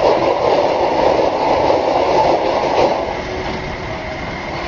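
Four-wheel-drive vehicle's engine running hard under load as it climbs a steep ramp, easing off about three seconds in.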